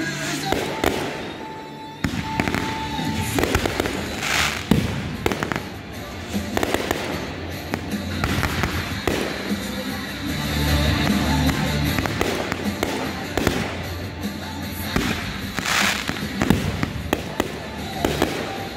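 Fireworks display set to music: shells bursting and crackling in dense runs of sharp pops, with two longer hissing surges from ground fountains, over music with a steady low bass line.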